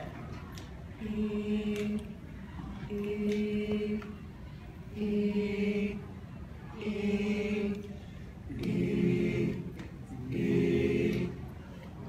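A cappella vocal group singing six short held chords, one about every two seconds with pauses between them; the last two are fuller, with lower voices added.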